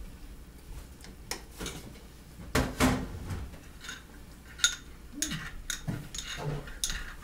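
A utensil stirring and clinking against a small ceramic bowl: a run of light irregular clinks, with a louder knock about two and a half seconds in.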